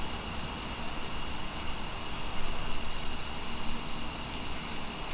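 Night insects chirring steadily, with high, evenly pulsing trills over a constant background hiss.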